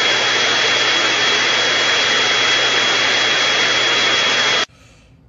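Small handheld vacuum cleaner running steadily with a high motor whine as it sucks up clumps of shed pet fur from a tiled floor; the sound cuts off abruptly near the end.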